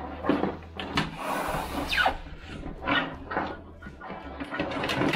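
Hands working inside a desktop PC case, unplugging front-panel cables such as the USB 3.0 header: a run of small plastic clicks and knocks, with a short scraping rustle about a second in.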